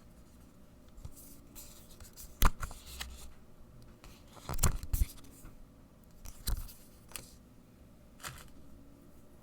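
Keyboard packaging being handled while unboxing: rustling and scraping of box and wrapping, with a few sharp knocks and taps, the loudest a little over two seconds in and a cluster around five seconds.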